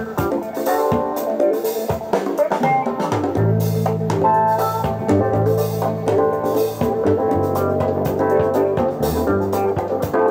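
Music with guitar and drums played from a vinyl record on a Revox B795 Linatrack turntable fitted with a Denon DL-110 cartridge; a strong bass line comes in about three seconds in.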